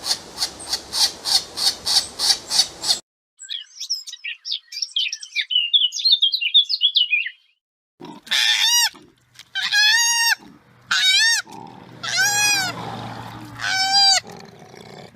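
A run of different animal calls cut one after another: first a rapid even pulsing at about four to five a second, then high bird twittering, then six or so loud high calls that rise and fall, each under a second long.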